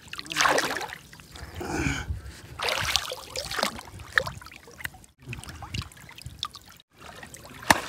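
Lake water sloshing, splashing and trickling around a man wading chest-deep as he pulls a hooked carp out of the weeds, in several irregular bursts, with two brief total dropouts near the end.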